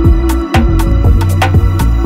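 Background music with a steady drum beat of about four hits a second over a continuous bass line.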